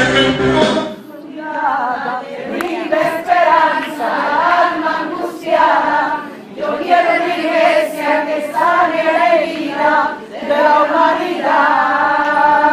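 Worship song playing, its band and bass cutting out about a second in to leave a choir singing in phrases without accompaniment.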